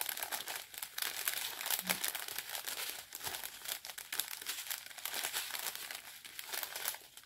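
Small clear plastic bags of diamond painting drills crinkling as they are handled and turned, a continuous irregular crackle.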